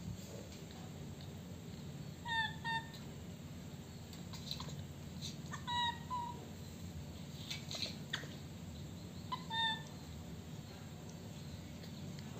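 Baby macaque giving short, high-pitched calls, each time two in quick succession, three times about three and a half seconds apart, over a steady low hum.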